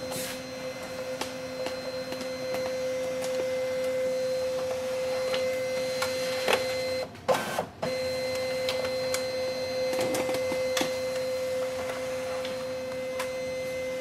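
Brother DCP-L2550DW laser all-in-one's automatic document feeder drawing a page through the scanner: a steady motor whine with light clicks. It breaks off briefly about halfway, then runs again and stops near the end.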